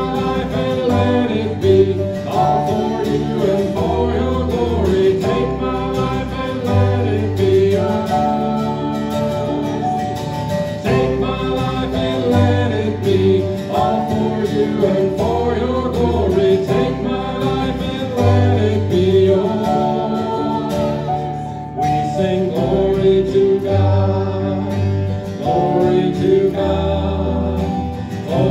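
Live worship band playing a song: a woman singing lead into a microphone over acoustic guitar, electric bass guitar and keyboard.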